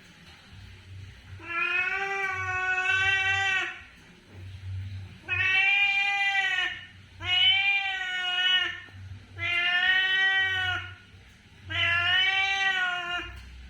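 Domestic cat meowing, five long drawn-out meows in a row with short pauses between them: a hungry cat begging for food.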